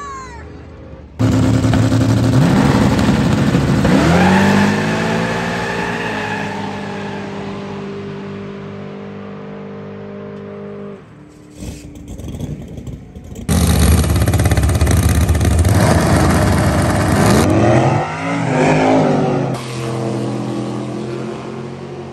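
Drag racing cars launching at full throttle, engines revving up with rising pitch through the gears and fading away down the track. It happens twice: a sudden loud start about a second in, then a second run starting about halfway through.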